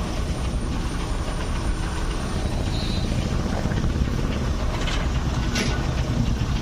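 Steady low rumble of a vehicle engine idling, with street noise around it and a couple of faint clicks about five seconds in.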